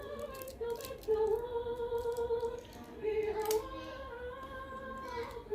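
A woman singing long held notes that slide from one pitch to the next, with sharp clicks scattered through.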